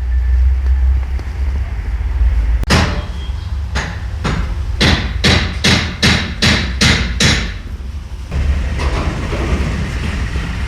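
Hammer blows: a run of about ten sharp strikes, roughly three a second, over a steady low rumble, then a rougher noisy stretch near the end.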